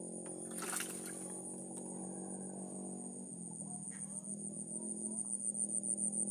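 Crickets trilling in one continuous high-pitched note over a low steady hum, with a single sharp click about a second in.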